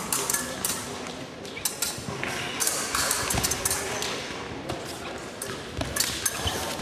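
Scattered sharp clicks and taps of fencing blades and footwork on the pistes of a large hall, over a murmur of voices.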